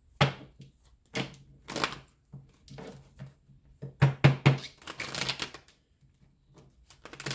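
A deck of tarot cards being handled and shuffled: a series of sharp clacks and slaps of the cards, loudest about four seconds in, with a brief rustle just after.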